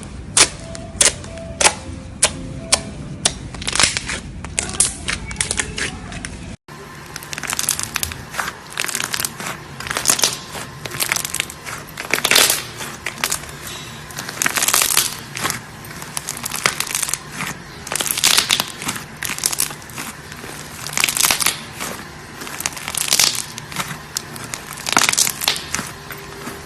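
Close-miked ASMR handling of slime and clay. First comes a run of sharp clicks and pops about twice a second. After a cut about six and a half seconds in, there is a series of crunchy crackles, roughly one a second, as the material is pressed and cracked.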